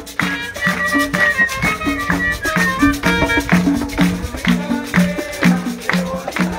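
Music with a repeating bass line, higher melody notes and a steady percussive beat.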